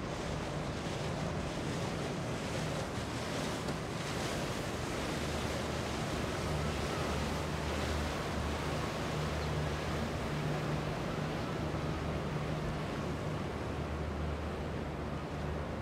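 Boat engines running with a low, steady hum, over water wash and wind noise on the microphone.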